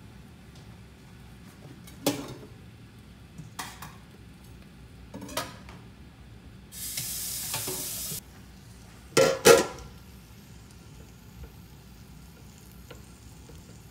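Mushrooms and green peppers frying in a lidded electric skillet, stirred with metal tongs. A few light knocks come first, then a burst of sizzling about seven seconds in that lasts a second and a half, then a loud double clatter of metal just after nine seconds.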